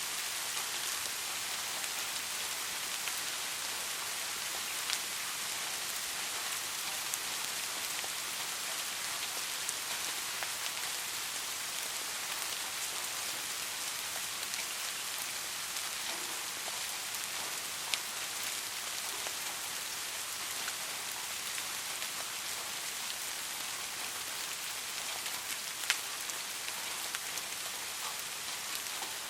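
Steady rain falling, an even hiss with scattered sharp drop ticks, a few louder single drops standing out now and then.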